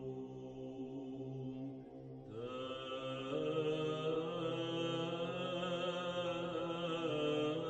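Background music of slow vocal chant on long-held notes. A new, fuller and louder phrase comes in about two seconds in.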